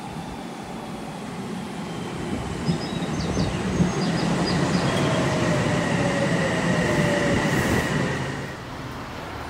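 Odakyu Line electric commuter train running in alongside the platform: rumble and wheel noise grow loud about two seconds in and ease off near the end. A motor whine falls in pitch in the later seconds, and there are a few short high wheel squeals early in the pass.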